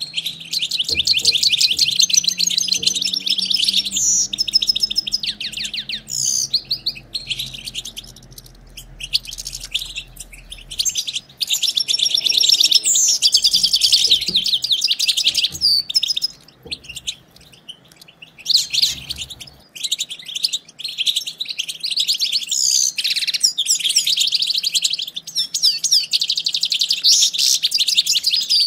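European goldfinches twittering: rapid, high, chattering chirps in long bursts separated by short pauses.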